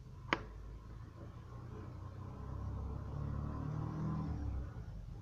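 A low rumble that builds over a few seconds and drops away near the end, with one sharp click about a third of a second in.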